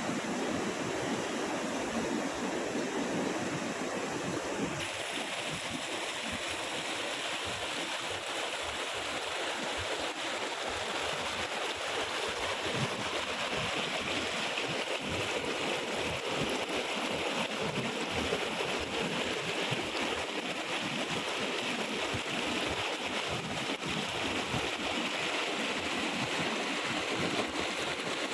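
Steady rush of water from a waterfall, changing about five seconds in to a brighter, hissier rush.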